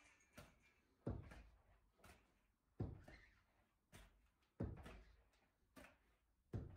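Dull thumps on a floor from a goalkeeping drill: four heavier thumps roughly every one and a half to two seconds, with fainter knocks between them.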